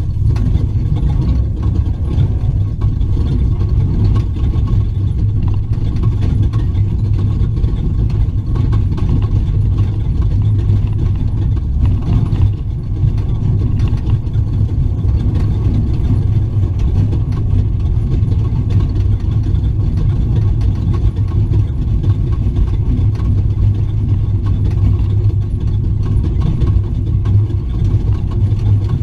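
Off-road race truck running across desert terrain, its engine and chassis heard from inside the cab as a loud, steady, low noise. The level dips briefly a little before the middle.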